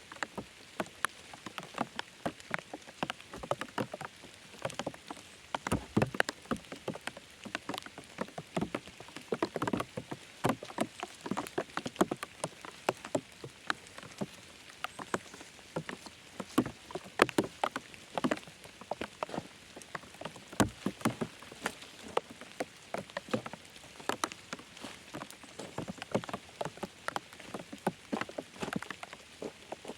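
Rain pattering, with dense, irregular individual drops ticking on surfaces.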